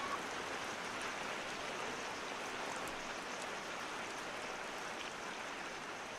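A steady, even hiss like rain or running water, fading slowly.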